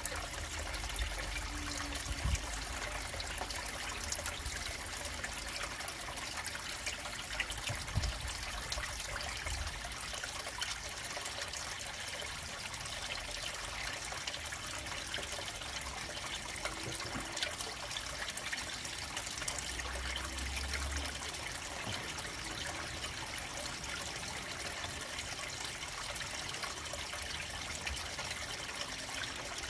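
Water trickling steadily into a koi pond, with a few low bumps along the way.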